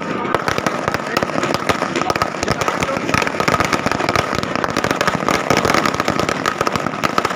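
Firecrackers going off on the ground: a dense, unbroken crackle of rapid small bangs, with a steady high tone running under it.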